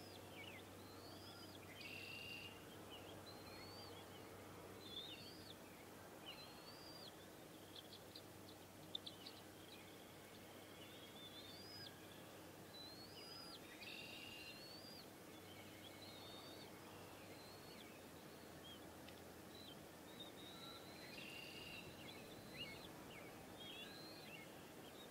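Faint bird calls: a run of chirps and short rising or falling whistled notes recurring every second or two. Under them is a steady low hum that stops about two-thirds of the way through.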